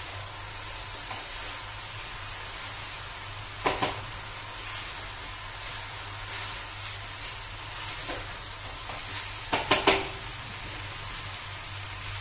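Zarda (sweet saffron rice) sizzling in a pan over a high gas flame as the last of its sugar syrup cooks off, with a wooden spatula stirring through it. The spatula knocks against the pan briefly about four seconds in, and again in a quick run of knocks near ten seconds.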